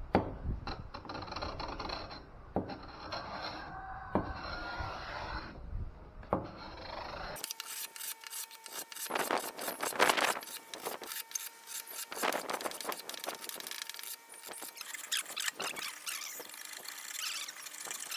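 Wood being rubbed and scraped by hand, in repeated strokes with a few sharp knocks. About seven seconds in it cuts to a brighter, closer take of the same kind of scraping, with a faint steady whine under it for several seconds.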